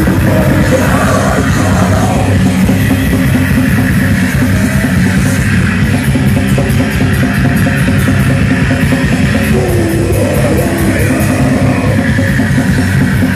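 Loud live crust punk band playing: distorted electric guitars and bass over fast drums on a full drum kit, with no break.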